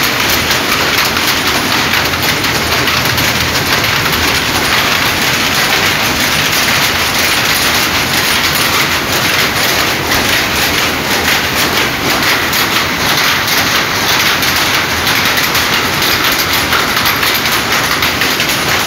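Many powerlooms running at once, weaving saree fabric: a loud, steady, rapid mechanical clatter that does not let up.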